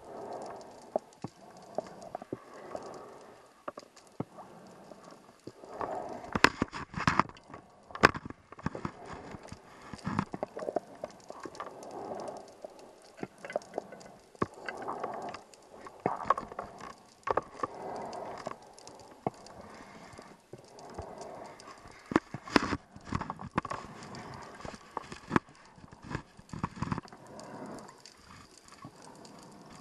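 Scuba diver breathing underwater through a regulator: exhaled air bubbles out in repeated bursts every couple of seconds. Sharp clicks and knocks are mixed in throughout.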